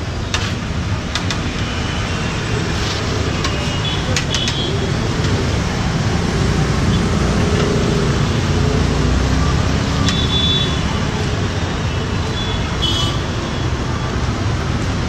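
Potato chips deep-frying in a large iron kadai of oil: a steady sizzle over a low rumble, with a few sharp clinks of the metal skimmer against the pan, mostly in the first few seconds and once more near the middle.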